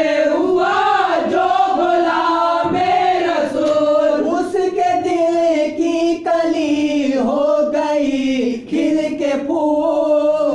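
Male voices singing an Urdu naat, drawn-out melodic phrases with no clear words.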